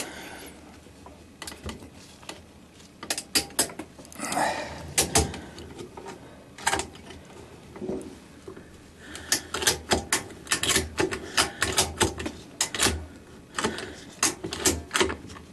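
Ratchet tie-down straps being cranked tight, the ratchet mechanism clicking in short runs of sharp clicks. The runs come faster and louder from about nine seconds in.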